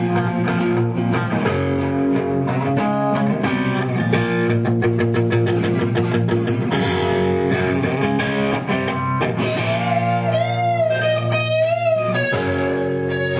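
Electric guitar played alone, a quick run of picked notes and then a long held note wavering in pitch about ten seconds in.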